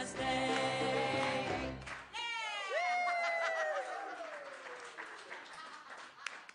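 Congregational singing of a hymn with piano and hand-drum accompaniment and clapping along, the last held chord stopping abruptly about two seconds in. Then one long whoop that leaps up and slowly falls away, followed by scattered hand claps.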